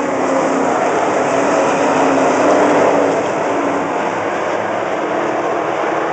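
A pack of late-model stock car V8 engines running around an oval track. The sound is loudest about two to three seconds in as the cars pass.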